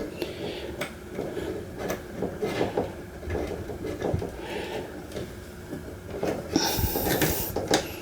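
Hand work on electrical wiring: light clicks, knocks and rubbing as wires and a wire connector are handled and fitted, with a short scraping hiss about seven seconds in.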